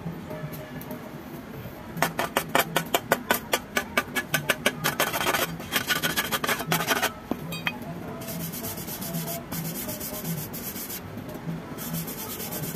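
Steel wire brush scrubbed over a fresh weld bead on thin steel plate, scraping off slag. Quick back-and-forth strokes, about six or seven a second, start about two seconds in, then longer stretches of steady brushing follow.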